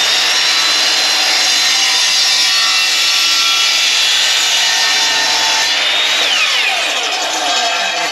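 Ryobi electric chop saw running at full speed, its blade cutting through a plastic pipe coupling. About six seconds in the trigger is released and the motor's whine falls as the blade spins down.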